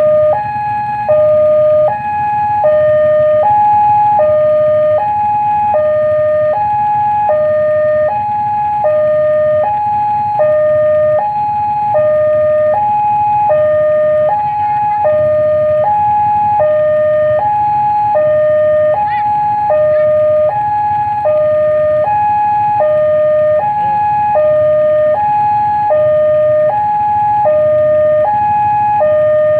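Railway level-crossing warning alarm sounding an electronic two-tone signal, switching evenly between a lower and a higher tone about every half second.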